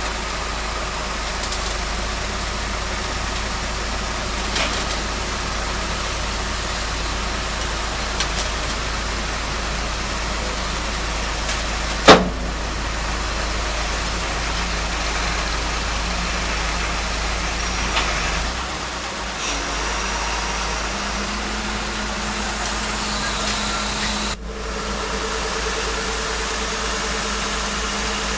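Heavy diesel engine running steadily at the excavator and truck, with a few light knocks and one sharp metallic bang about twelve seconds in. The engine note shifts after a brief dip near the end.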